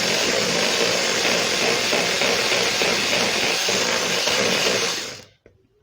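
Electric hand mixer running steadily as it whips chantilly cream with cocoa, then switched off about five seconds in.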